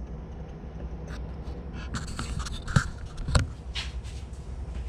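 Parts being handled and shifted: light scraping and two short knocks, over a steady low hum.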